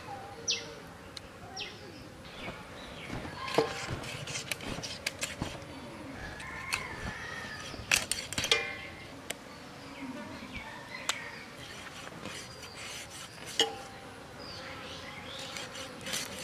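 Scattered sharp clicks and knocks of raw chicken being cut with a fixed upright blade, the pieces dropping into a bowl, with birds chirping now and then.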